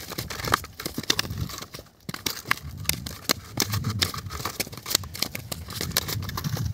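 Irregular crackling, clicking and rustling with soft low thumps: a nylon cast net, fish and a plastic basket being handled by hand.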